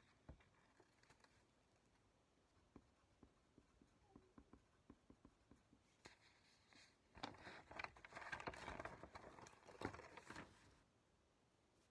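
Paper pages rustling as loose sheets and a spiral notebook are handled and turned. Scattered light ticks and taps come first, then a few seconds of denser rustling that is loudest over the last third and stops about a second before the end.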